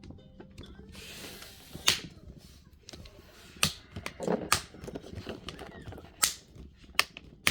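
Sharp plastic clicks, about six at uneven intervals: the Dell 3100 Chromebook's plastic bezel and case clips being pressed and snapped into place, with some handling rustle.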